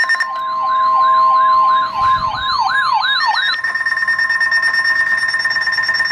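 Weather radio emergency alert for a severe thunderstorm warning. For the first three and a half seconds a warbling, siren-like tone sweeps up and down about three times a second over a steady alert tone; after that only the steady, high-pitched alert tone continues.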